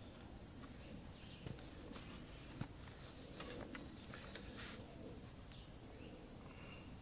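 Steady high-pitched chorus of insects, with a few faint soft knocks from handling, the loudest about two and a half seconds in.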